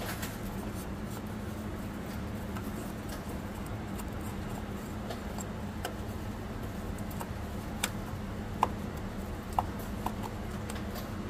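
A few small sharp clicks in the second half, as a plastic wiring connector is worked by hand onto the transmission's pass-through connector, over a steady low hum.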